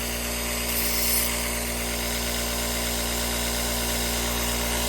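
Electric sharpening grinder's motor running steadily, with a brief high hiss of knife steel against the abrasive about a second in, as the sharp corners of a freshly reshaped knife tip are taken off.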